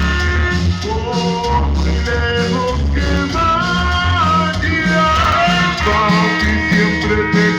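Loud music with a heavy, pulsing bass line under a melody, played over a DJ sound system.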